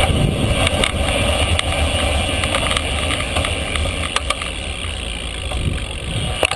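Riding noise from a bicycle on the move: wind buffeting the microphone and road rumble, with scattered light clicks and rattles, and a sharper knock near the end.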